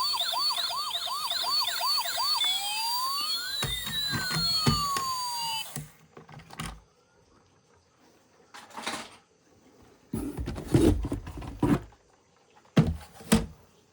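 A toy emergency vehicle's electronic siren: a fast repeating warble that switches about two and a half seconds in to slower rising and falling sweeps, then cuts off suddenly about six seconds in. After it come a few handling knocks, a brief clatter, and two sharp knocks near the end.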